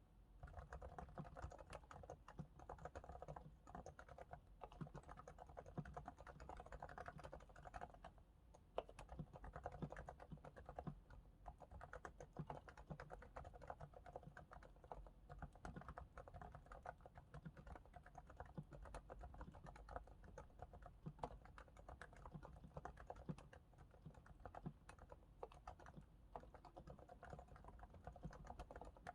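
Typing on a Realforce R2S keyboard with silent, equal-weight 45 g Topre electro-capacitive switches, lubricated with Krytox 105 on the sliders and Krytox 205 on the stabilizers. It is a steady, dense stream of quiet, muted keystrokes with no pauses.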